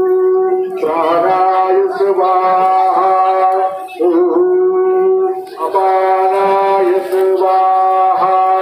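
A voice singing a devotional song in long held notes, each a second or two long, with small scoops in pitch at the start of each note and brief breaks between them.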